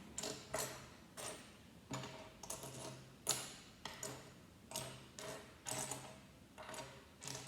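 Plastic Lego pieces being handled: a string of light clicks and rattles about once or twice a second, the sharpest about three seconds in.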